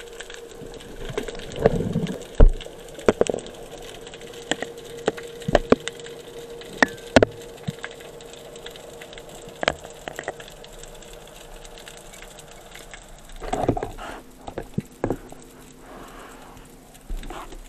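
Underwater sound through the camera: irregular sharp clicks and crackles over a steady low hum, with two louder rushing bursts, about two seconds in and again later on.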